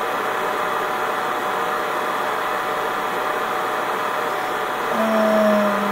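Steady rushing room noise with a faint thin steady tone. Near the end a woman hums one low, slightly falling note for about a second.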